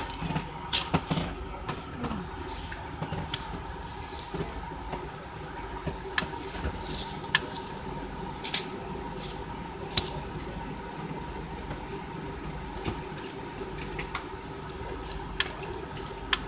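Steady background hum with faint steady tones, broken by scattered sharp clicks and light knocks from handling close to the microphone; the loudest click comes about ten seconds in.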